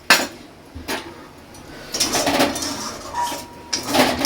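Metal utensils knocking and scraping against a cooking pan: a sharp clack right at the start, another just under a second in, then longer scraping clatters around two and four seconds in.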